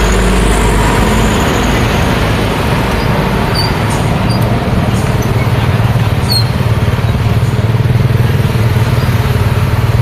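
Busy street traffic passing close by: a steady stream of motor scooters and cars, with a small truck, engines running and tyres on the road. The low engine hum grows stronger over the second half.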